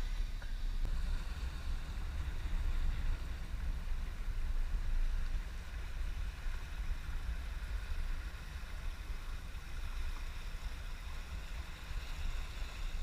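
Boat under way at sea: a steady low rumble with gusting wind on the microphone and a faint wash of water.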